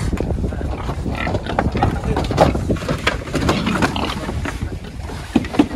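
F1 gilts grunting while being moved, with scattered sharp knocks and scuffs and a steady low rumble underneath.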